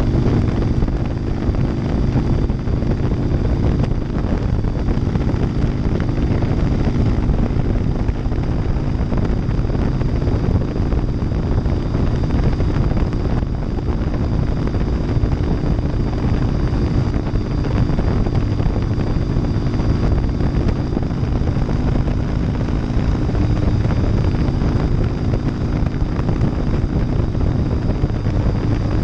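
Harley-Davidson Softail Deuce's 88-cubic-inch V-twin running at a steady cruise through Vance & Hines baffles, with wind rushing over the microphone.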